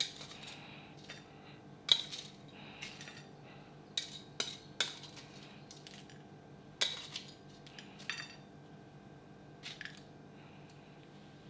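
Metal tongs clinking and scraping against a ceramic bowl and plate while scooping out and sprinkling fried herbs: about eight sharp, separate clicks at irregular intervals, two of them louder than the rest.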